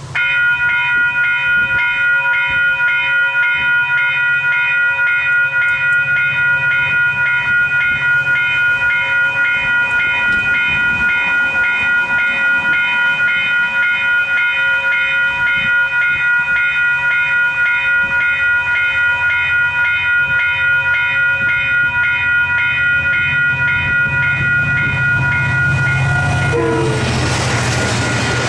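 Western Cullen Hayes electronic level-crossing bells start up suddenly and ring with a rapid, even, high ding as the crossing activates. About two seconds before the end, a diesel-hauled Te Huia passenger train arrives and passes over the crossing, adding a rushing rumble under the bells.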